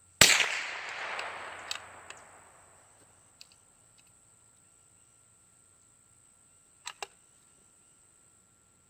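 A single shot from a Remington Model 514 single-shot .22 bolt-action rifle, the report echoing and dying away over about two seconds. Two sharp clicks follow in quick succession near the end.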